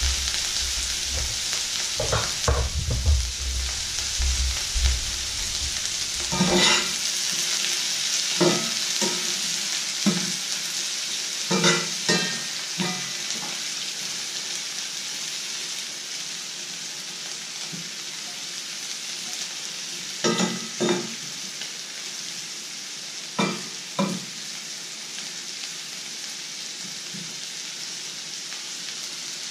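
Sliced onions frying in a black pan with a steady, high sizzling hiss. A few short knocks and rustles break in here and there as the onions are turned by hand.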